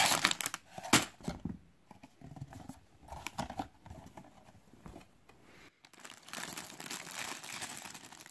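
Clear plastic bags full of Lego bricks crinkling as they are handled, pulled from a cardboard box and set down, the loose bricks shifting inside. A loud crinkle and a sharp click come in the first second, quieter rustles follow, and a longer spell of crinkling comes near the end.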